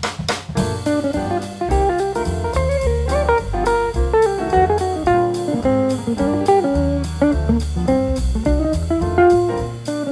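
Background music: an upbeat jazzy piece with plucked guitar melody over a pulsing bass line and a drum kit keeping a steady beat.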